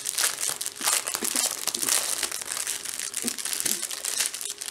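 Plastic bags of diamond-painting drills crinkling as they are handled and taken out of their packaging, an irregular crackle.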